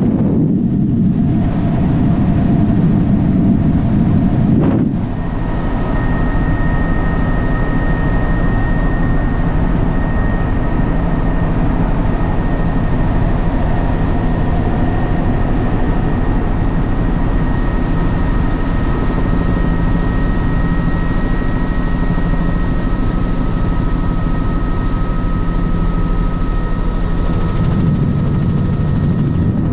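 Helicopter in flight heard from on board: a steady engine and rotor drone with a thin high whine over it. The sound dips briefly about five seconds in.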